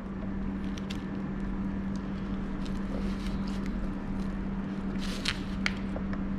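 Small clicks and rustles of hands working the scooter's wiring connectors while the throttle cable is unplugged, with a sharper click about five seconds in, over a steady low hum.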